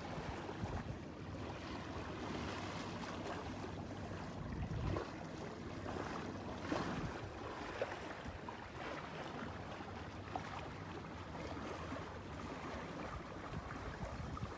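Water rushing and splashing along the hull of a J/24 sailboat under sail, with wind noise and a few louder splashes.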